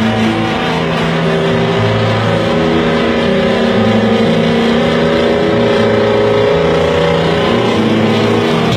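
Loud diesel engines of giant-tyred lifted trucks running hard, the engine note held high and shifting up and down in steps.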